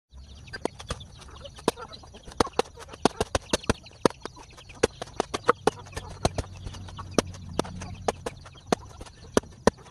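Knife slicing through a fresh banana stem, a sharp click with each cut, several a second in an uneven rhythm.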